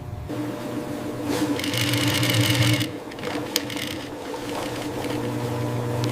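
Industrial sewing machine stitching leather: a steady motor hum that grows louder and brighter for about a second and a half in the middle.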